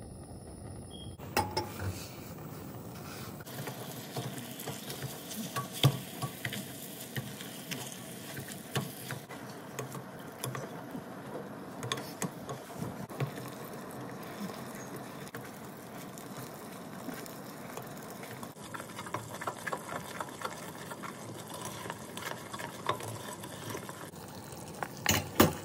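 Butter, sugar and honey melting together in a saucepan on the heat, sizzling steadily while a spoon stirs, with frequent small clicks of the spoon against the pan.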